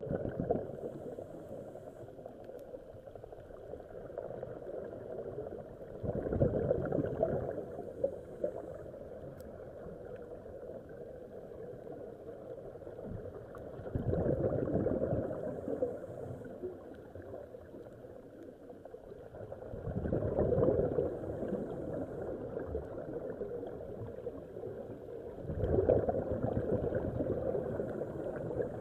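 Scuba divers' exhaled air bubbling from their regulators, heard on an underwater camera: four louder bursts of bubbles, one with each breath about every six seconds, over a steady muffled underwater hiss.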